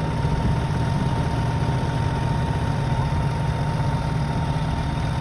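Farm machinery engine running steadily, a low even drone with a faint steady whine above it.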